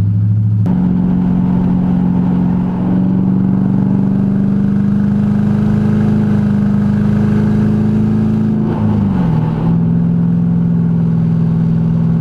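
Lexus LS400's 1UZ V8 under load at highway speed, loud through a partial exhaust. The revs climb slowly, then an upshift about nine seconds in drops them and the engine settles into a steady cruise.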